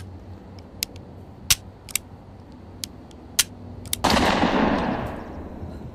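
Toy pistols firing: a string of sharp single cracks at uneven intervals. About four seconds in, one gun lets out a sudden loud rushing spray that fades away over about a second.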